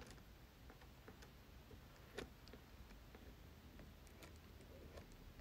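Near silence with a few faint, scattered ticks, the clearest about two seconds in: a plastic store card's edge touching and scraping wet watercolour paper to lift out tree trunks.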